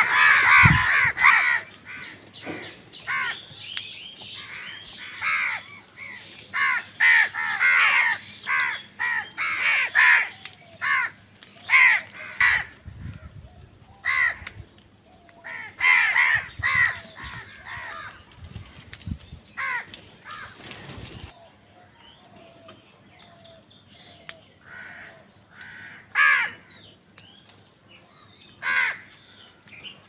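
A flock of house crows cawing, many short harsh calls overlapping from several birds at once, coming thick and fast through the first half and thinning to scattered single caws later on.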